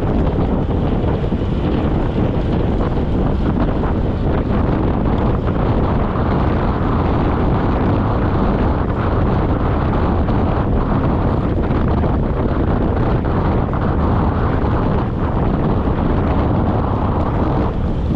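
Steady, loud wind buffeting on a handlebar-mounted camera's microphone from riding a road bike at about 35 km/h.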